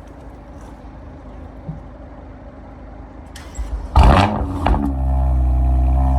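BMW M2 Competition's twin-turbo straight-six, breathing through a Milltek cat-back exhaust with an Active Autowerke equal-length mid pipe, starting up with its exhaust valves shut: about four seconds in the starter cranks and the engine catches with a loud flare, then settles into a steady idle.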